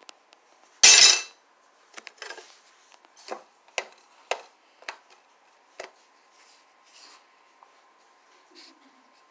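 Metal spoon spreading sauce on crackers on a baking tray: a run of sharp clicks and short scrapes as the spoon knocks and drags across the crackers and tray. A single loud clatter comes about a second in.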